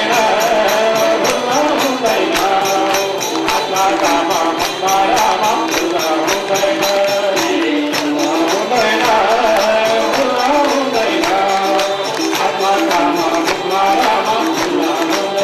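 Nepali devotional bhajan: a singing voice carries the tune over a fast, steady beat of jingling percussion.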